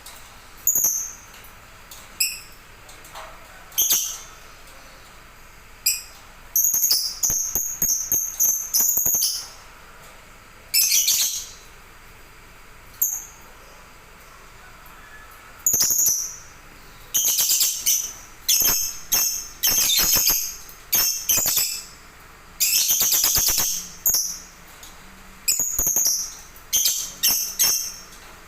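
A caged songbird singing: short, loud, high-pitched phrases and rapid trills, coming in irregular bursts every second or two, over a faint steady background hiss.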